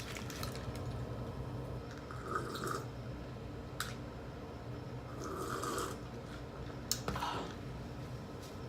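Close-miked chewing and mouth sounds of someone eating, in a few short soft bursts with a couple of small clicks, over the steady hum of an air conditioner.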